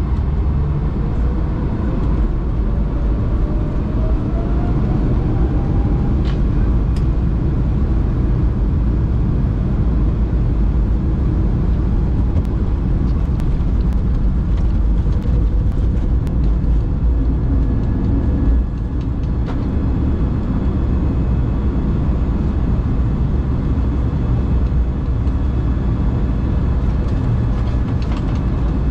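Airbus A220's Pratt & Whitney PW1500G geared turbofans at takeoff thrust, heard from inside the cabin: a whine rising in pitch over the first few seconds above a loud, steady rumble of the takeoff roll and climb. The level dips slightly about two-thirds of the way through.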